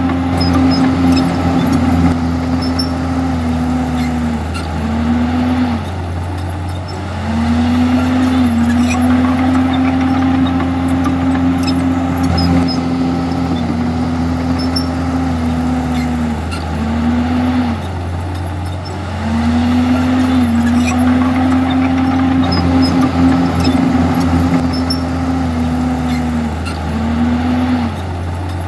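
Komatsu D51EX bulldozer's diesel engine running hard and steady while working. Its note sags and recovers in short pairs about every eleven seconds.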